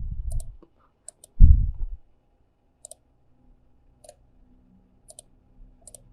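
Computer mouse clicks, about seven short sharp clicks spaced irregularly, with one brief, louder low thud about a second and a half in.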